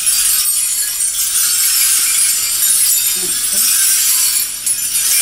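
Sequins and small bells on a costume jacket jingling and rustling steadily as the jacket is handled and fitted onto someone's shoulders.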